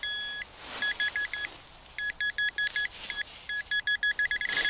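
Metal detector signal tone: a longer electronic beep, then short beeps in quick groups, running into rapid, slightly higher-pitched beeping near the end as it homes in on a buried metal target. A short rustling noise comes just before the end.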